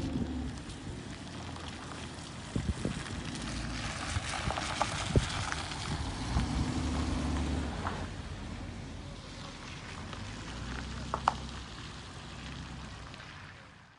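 Steady rumble and hiss of a vehicle driving on a wet road, with an engine hum that swells twice and a few sharp clicks and knocks.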